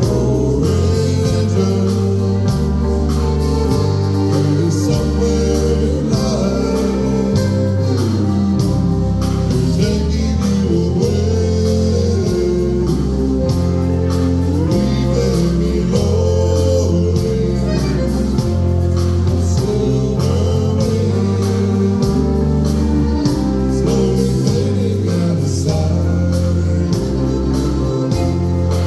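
Live band playing a song with a sung vocal over a steady drum beat, its bass changing note about once a second.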